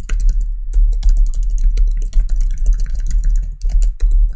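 Fast typing on a computer keyboard: a quick run of key clicks as a flowchart label is typed out, over a steady low hum.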